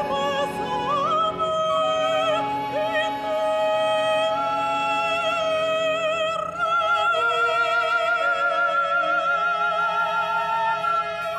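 Operatic soprano singing with wide vibrato over a sustained chamber-ensemble accompaniment, sliding up into notes early on and holding one long high note through the second half.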